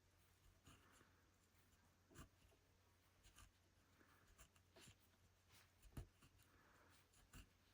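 Faint rug hooking: a hand hook poking through the backing and pulling wool strips up into loops, giving soft irregular clicks with a few brief scratchy rubs.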